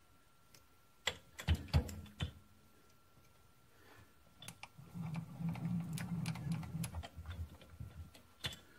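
Sharp metallic clicks and clatter from handling a dial indicator's magnetic-base holder as its arm is set and clamped. There is a quick cluster of clicks about a second in, then a few seconds of low rattling with scattered clicks.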